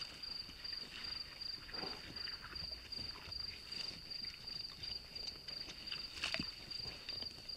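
Wild boar walking and rooting through dry leaf litter, with short rustles and crunches and one louder crackle a little after six seconds in, over the steady, fast, even chirping of a night insect.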